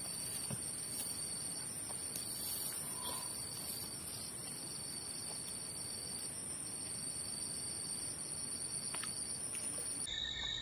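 Steady, high-pitched insect chorus of shrill, continuous buzzing over faint outdoor background noise. Near the end the high tone stops and a lower-pitched insect tone takes over.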